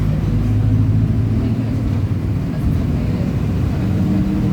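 Mercedes-Benz OF 1722M bus engine running at high revs with a droning differential, a steady low hum whose pitch climbs near the end.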